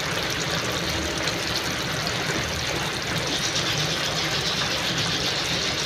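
Fish steaks simmering in tomato sauce in a frying pan: a steady bubbling sizzle.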